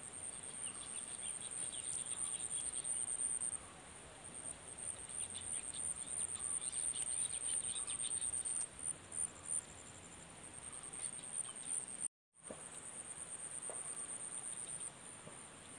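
Insects trilling in a steady, high-pitched pulsing drone, with faint scattered chirps. The sound drops out for a moment about twelve seconds in.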